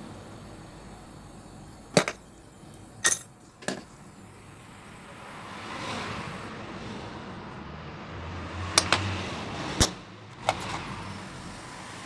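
Gas brazing torch burning with a steady hiss while brazing refrigerator copper tubing. Sharp cracks break through it, one about two seconds in, two more soon after, and a cluster of four between about nine and ten and a half seconds.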